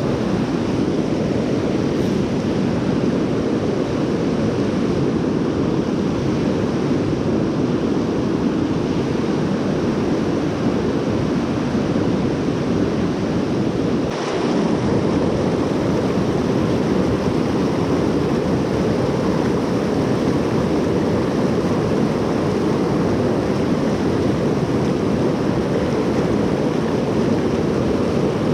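Rain-swollen creek rushing in a steady, loud roar of fast white water, the river running high and blown out after heavy rain.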